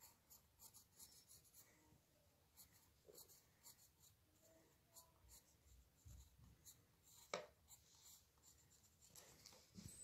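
Faint pencil scratching on paper in many short drawing strokes, with one sharp click about seven seconds in.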